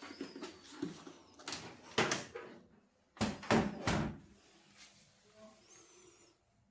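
A series of knocks, clunks and scrapes: a cluster about one and a half to two seconds in and the loudest ones a little past three seconds, the sounds of air-conditioner panels and parts being handled and fitted back on.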